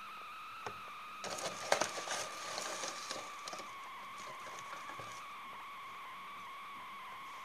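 Cardboard cocoa box being handled: a cluster of rustles, scrapes and clicks starting about a second in and lasting about two seconds, then a few faint clicks, over a steady high-pitched whine.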